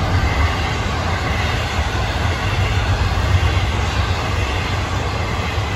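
Double-stack container cars of a Florida East Coast Railway intermodal freight train rolling past. It makes a steady low rumble with continuous wheel-on-rail noise.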